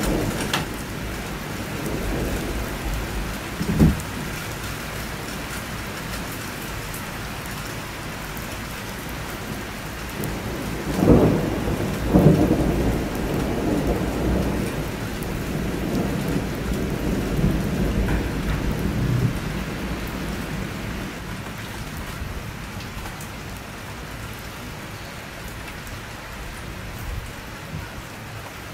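Thunderstorm: steady rain with thunder. There is a short crack a few seconds in, then a loud thunderclap about eleven seconds in that rumbles on for several seconds and dies away.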